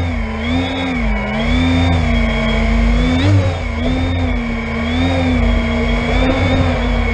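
Brushless motors and propellers of a 12S X-class FPV quadcopter, heard from its onboard camera, whining steadily while it hovers low. The pitch wavers gently up and down with small throttle changes, with a brief quick rise about three seconds in, over a low rumble.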